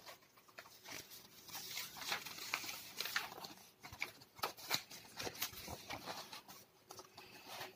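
Paper pages of a large scrapbook being turned and handled: irregular rustling with sharp crackles and flaps.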